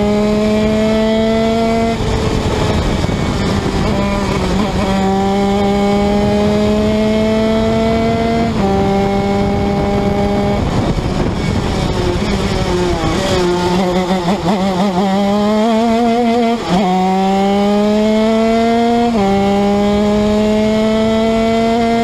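Two-stroke engine of a 125cc TM shifter kart at full throttle, its pitch climbing steadily and dropping sharply at each of several upshifts. Around the middle the pitch falls and wavers as the kart slows for a corner, then it climbs again through the gears.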